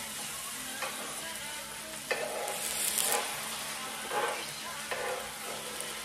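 Fried eggs and pancakes sizzling on an electric griddle, a steady frying hiss, with a spatula scraping and tapping against the griddle a few times.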